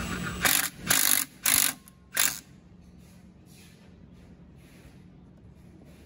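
Cordless impact driver hammering in four short bursts, tightening a field-installable hydraulic hose fitting onto its hose with a 5/8 socket.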